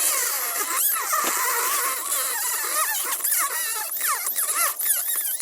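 Rubber squealing and squeaking in quick, wavering chirps as a tool is worked and twisted around a metal inner hex to free it from a 1/5-scale RC tire.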